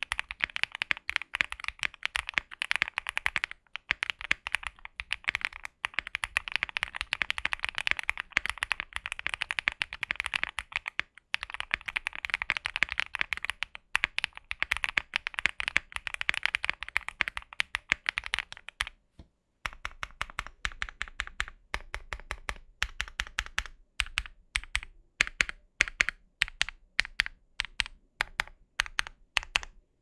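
QK65 mechanical keyboard with lubed MMD Cream linear switches on a POM plate, no case foam, and GMK keycaps, being typed on fast and continuously. After a short pause about two-thirds of the way in, the keys are struck more slowly as separate keystrokes.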